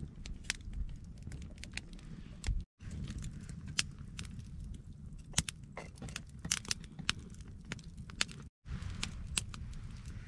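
Small stick campfire crackling with sharp irregular pops over a low rumble, mixed with light metal clinks of a spoon and steel cooking pot. The sound drops out completely for a moment twice.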